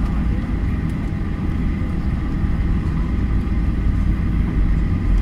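Cabin noise of a Boeing 737 taxiing: a steady low rumble from the jet engines and the rolling aircraft, with a faint steady whine above it.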